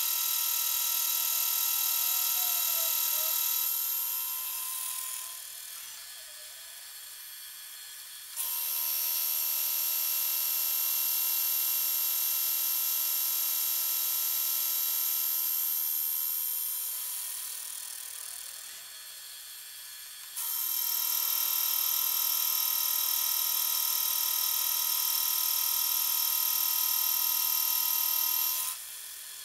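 Milling machine face mill cutting across a vise body casting, a steady high-pitched whine from the inserts in the cut. It fades away twice, about 5 and 17 seconds in, and starts again abruptly about 8 and 20 seconds in. It cuts off suddenly near the end.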